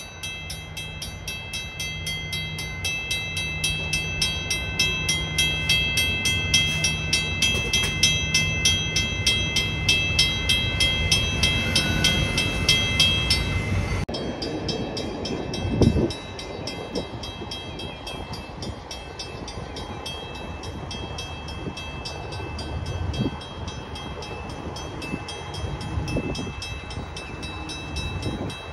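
Railroad grade-crossing bell ringing in steady, evenly spaced strokes over the low rumble of a departing Trinity Railway Express commuter train. About halfway through the bell cuts off suddenly as the crossing clears and the gates go up. Quieter background follows, with one loud thump a couple of seconds after the bell stops.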